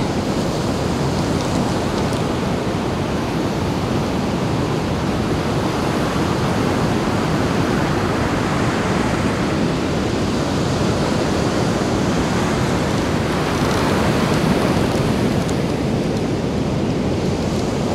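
Surf breaking steadily on a beach, mixed with wind on the microphone, swelling slightly about fourteen seconds in.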